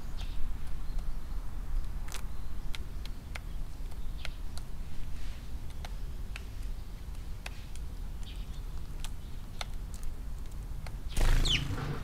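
Eurasian tree sparrow pecking grain from a plastic feeding tray: sharp, irregular ticks over a steady low rumble. About eleven seconds in comes a louder burst with a short falling chirp.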